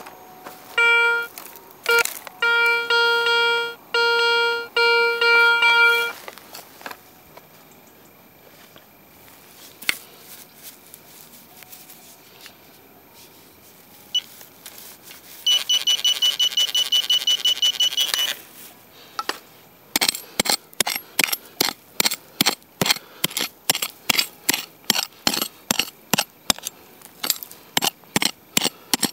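Metal detector target signals: a run of short, mid-pitched beeps over the first few seconds, then a higher warbling tone for about three seconds. About twenty seconds in, a fast, even run of sharp clicks starts, about two or three a second.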